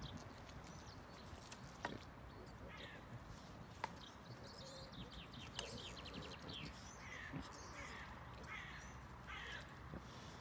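Wild boar moving over a forest floor strewn with twigs and branches: a few sharp snaps and knocks, with short high calls recurring through the second half.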